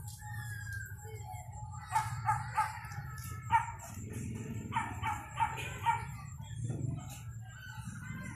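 An animal calling in short, sharp calls, a quick run of them about two seconds in and another about five seconds in, over a steady low hum.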